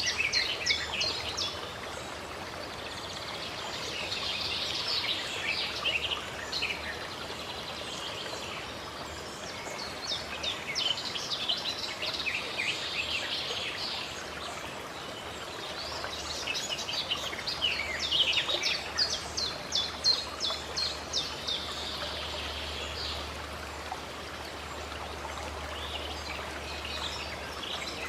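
Birds chirping in repeated bouts of quick high notes over a steady rush of flowing water.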